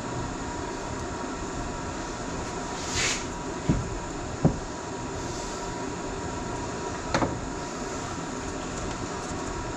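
Steady low background rumble of a workshop, with a few short knocks and clicks as small steering-valve parts are handled and set down: a brief swish, two dull knocks a second or so later, and a click near the end.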